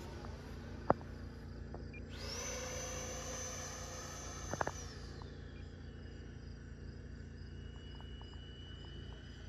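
Distant whine of the FMS 80mm F-86 Sabre's electric ducted fan, a steady high pitch that swells in for a few seconds and falls back, then a fainter high tone carries on. A single sharp click about a second in.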